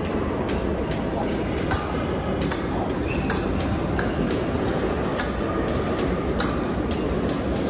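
Fencing blades clinking lightly and feet tapping on the metal piste as two fencers probe for distance, in short sharp clicks every half second or so, over the steady background noise of a large hall.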